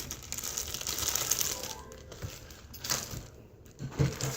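Hands squishing and stretching slime: a wet crackling texture, then scattered sticky clicks and pops, the loudest a low pop near the end.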